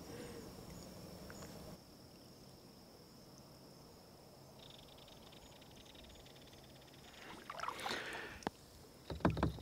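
Quiet lake ambience with a kayak paddle dipping and splashing in the water near the end, as the kayak is paddled backwards. A faint high buzzing trill runs for a couple of seconds midway.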